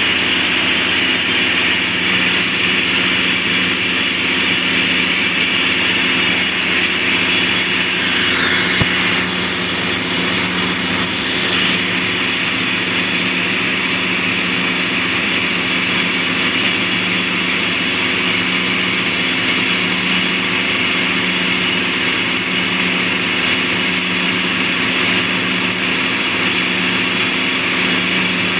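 Down-the-hole drill rig drilling into rock: a loud, steady hiss with a constant low hum underneath. The hiss changes briefly about nine seconds in.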